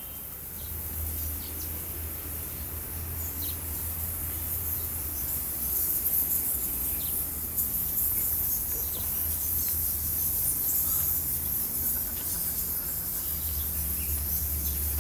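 Dense high-pitched chirring of small animals, flickering on and off, with a few short chirps over a low rumble on the microphone.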